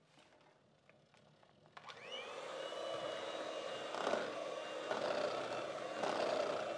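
Electric hand mixer switched on about two seconds in, its motor whining up to speed and then running steadily as the beaters churn cassava flour and water into tô dough. Before it starts, a few faint clicks of the mixer being handled.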